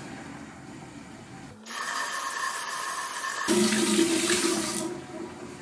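Kitchen tap running water to rinse a tomato. It comes on about one and a half seconds in, gets louder about two seconds later as the stream hits the fruit or sink, and is shut off about a second before the end.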